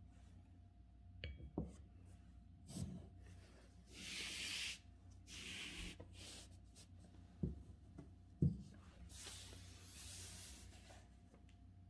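A hand sliding and rubbing a sheet of calligraphy paper across the desk, giving three stretches of dry rubbing hiss. Several soft knocks and thumps fall between them.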